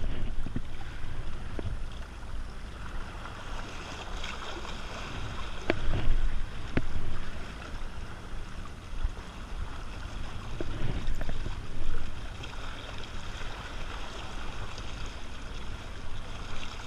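Wind rumbling on the microphone over the wash of the sea, with a few sharp clicks as the spinning rod and reel are handled during the retrieve.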